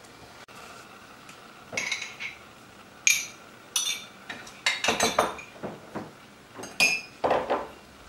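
Porcelain plates and metal spoons clinking as they are handled: a few sharp, ringing clinks with softer knocks between them.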